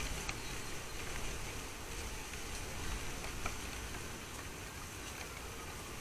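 Steady low rumble and hiss of outdoor garden ambience, broken by a few faint sharp taps from a blue tit pecking at a wire-mesh peanut feeder.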